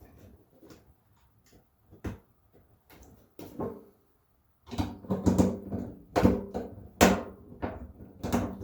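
Irregular clanks and rattles of tools and metal parts being handled at the gas tank, a few scattered knocks at first, then a busier, louder clatter from about halfway in, with a brief ring after the strongest knocks.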